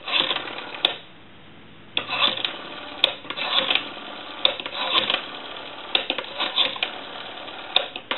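Rotary dial of a Western Electric 500 telephone being wound and let spin back, digit after digit, each turn giving a run of quick mechanical clicks.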